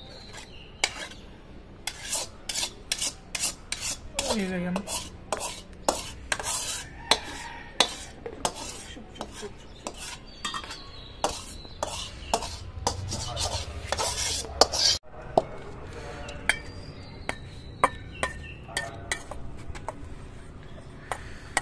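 Metal utensils clinking and scraping against steel cookware in quick, irregular knocks. In the later part a metal spatula stirs and scrapes fried cabbage and carrot around a steel bowl.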